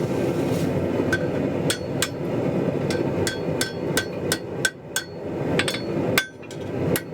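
Hammer blows on a 3/8-inch square mild steel bar against an anvil, a dozen or more ringing strikes at about two a second, starting about a second in, while the tab of a forged lantern hanger is reworked. A steady low rushing noise runs underneath.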